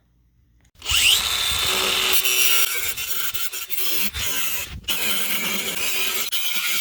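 Angle grinder switched on about a second in, its motor whining up to speed, then grinding steadily under load with a brief break near the end.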